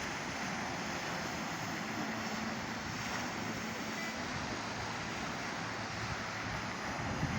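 Steady rush of Black Sea surf with wind.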